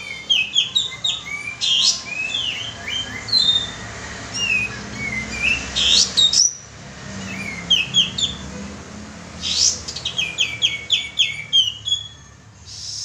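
Kapas tembak bulbul singing in bouts of quick, chirpy whistled notes, repeated phrase after phrase with short pauses between, played as a lure call.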